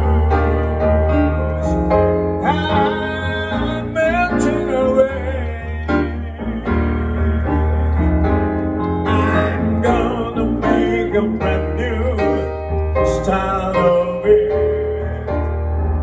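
A man singing a song into a microphone over a band accompaniment with a steady bass line.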